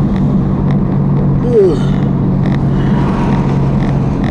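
Steady low engine hum and rumble of a running motor vehicle. A short falling squeak comes about a second and a half in.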